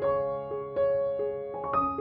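Background music: a gentle piano melody of single struck notes, about three a second, each ringing out and fading.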